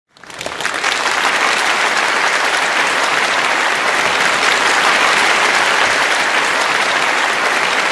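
Audience applauding steadily, swelling in within the first half second.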